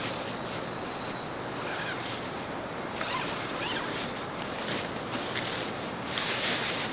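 A bird repeats a short high call about once a second over a steady background hiss. Near the end comes the rustling and scraping of a large nylon tent bag being handled on the grass.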